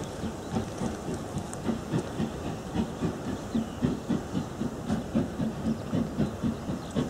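LNER B12 4-6-0 steam locomotive No 8572 working a train, its two-cylinder exhaust beating in a steady rhythm of about three to four chuffs a second.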